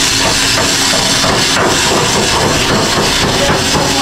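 Loud, steady engine-room machinery noise, with repeated knocking like metal being hammered during repair work on a hydraulic pump and electric motor.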